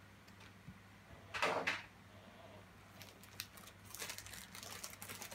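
Plastic packaging being handled: a short soft rustle about a second and a half in, then from about three seconds in a run of small clicks and crinkles as a packet is taken out of a plastic storage box.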